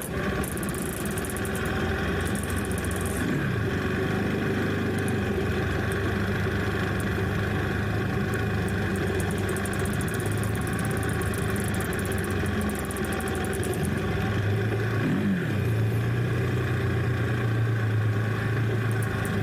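Trail motorcycle engine running steadily, its pitch briefly dipping and rising twice as the throttle changes.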